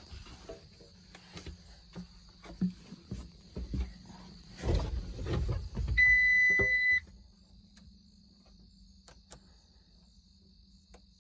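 Start attempt on a 2015 New Holland L230 skid steer: a few sharp clicks from the starting circuit with no cranking and no engine firing, some low thumps, and a steady electronic warning beep lasting about a second, about six seconds in. The click-but-no-crank shows the starting fault persisting even after the battery was charged.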